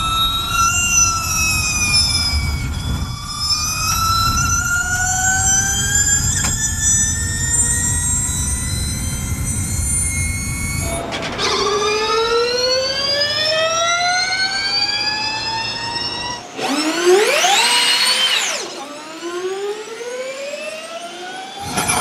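Electric powertrain of a season-4 Jaguar Formula E car (Gen1 era) whining in several layered tones. The pitch dips, then climbs with speed, over a low rumble heard from on board. After a cut about 11 s in, the whine rises steadily as the car accelerates. Near 17 s a louder, higher whine sweeps up and falls back, then climbs again.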